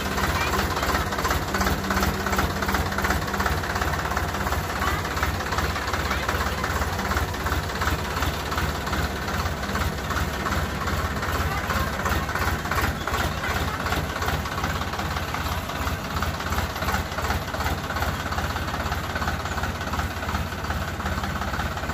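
Diesel tractor engine running at a low, steady speed with a rapid, even clatter.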